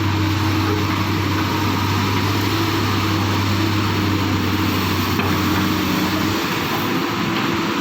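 Excavator's diesel engine running steadily, a continuous low drone under mechanical noise; the low tone thins out about six seconds in.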